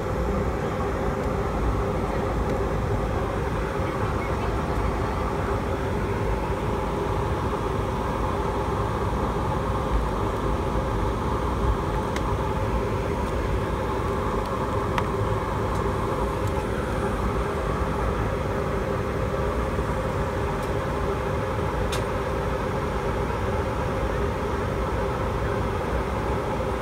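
Boeing 757-200 jet engines running at idle, heard from inside the cabin over the wing as the airliner taxis slowly: a steady noise with a low, even hum and a few faint ticks.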